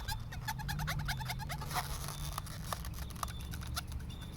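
Twisted latex balloons squeaking and rubbing as they are handled: a run of short, high squeaks and small crackling clicks.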